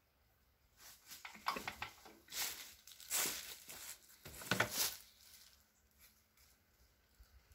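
Footsteps crunching and shuffling through dry fallen leaves, a few seconds of crackly rustling that dies away after about five seconds.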